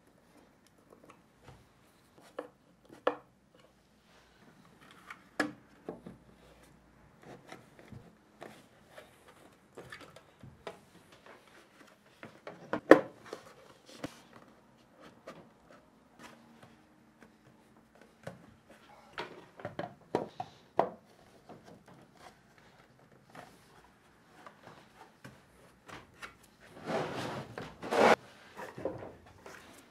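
Scattered knocks, clicks and scrapes of plastic power tool chargers being handled and set down on plywood shelving, with a sharp knock about halfway through and a longer scraping rub near the end.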